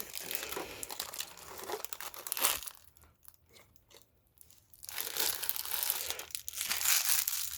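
Ink-cartridge packaging crinkling and rustling as it is handled. There is a lull of about two seconds in the middle before the crinkling starts again.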